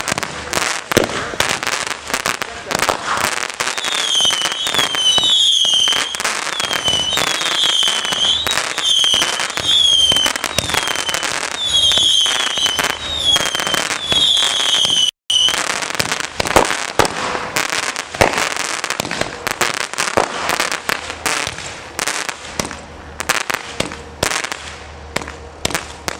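Consumer aerial fireworks barrage firing: rapid launch thumps, bursting pops and crackle, with a run of short high whistles from about four to fifteen seconds in. The sound cuts out completely for a moment around fifteen seconds, and the shots thin out and get quieter near the end.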